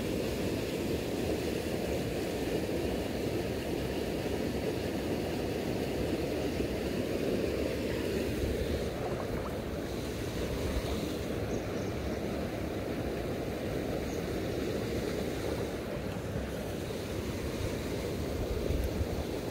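Steady rush of river water flowing through a shallow, stony riffle.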